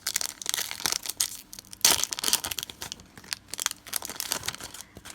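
Pokémon booster pack's foil wrapper being torn open and crinkled, a run of quick crackling rustles with the sharpest tear about two seconds in.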